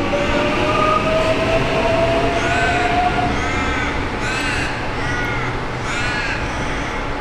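X'Trapolis electric multiple unit pulling out, its traction motors whining and rising in pitch as it accelerates, the whine fading out about three seconds in. From about two and a half seconds in, a bird calls about five times in short repeated calls.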